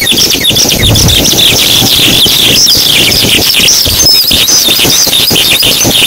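Many birds chirping at once in a dense, continuous chorus of short high calls, over a low rumbling noise.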